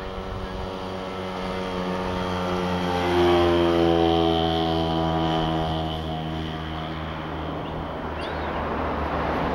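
An engine passes by. Its hum builds to a peak about three seconds in, then fades as its pitch drops slightly, over a steady low engine hum.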